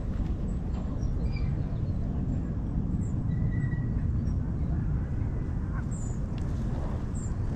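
Steady low rumble of wind on the microphone over open water, with a few faint, short bird chirps.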